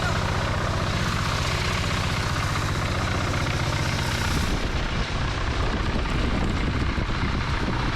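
Engine-driven rice blower running steadily, its small engine pulsing evenly as it blows grain clean of chaff and dirt. About halfway through, the sound turns rougher and less bright.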